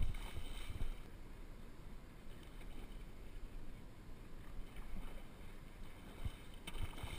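Water lapping and knocking against a plastic sit-on-top kayak's hull, with two short whirring bursts of about a second each, one at the start and one near the end.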